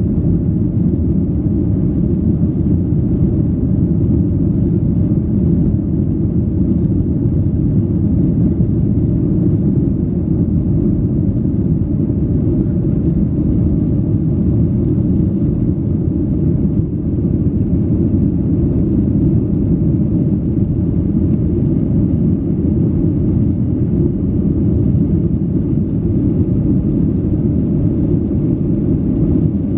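Jet airliner cabin noise during the climb after take-off: a steady low rumble of the engines and airflow, heard from inside the cabin.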